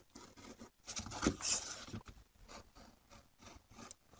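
Irregular scraping and rustling strokes of a hobby knife cutting and trimming sheet gasket material, with the loudest scrape about a second and a half in.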